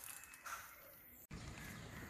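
Quiet outdoor ambience with one faint crow caw about half a second in. A brief dropout a little after a second is followed by a low rumble.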